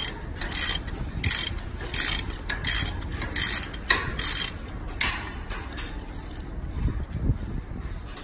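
Hand ratchet wrench worked back and forth on a bolt, a short burst of pawl clicking on each return stroke, about one to two strokes a second; the strokes stop about five seconds in.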